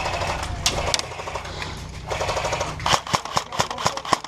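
Airsoft guns firing: a run of sharp shots at uneven spacing, several close together like short bursts, loudest about three seconds in.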